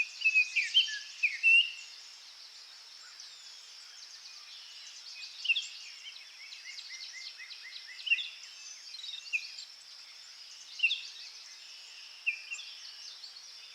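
Small garden songbirds calling: sharp chirps, loudest in a cluster in the first two seconds, then scattered single calls and a quick run of repeated notes around the middle, over a steady high-pitched background hiss.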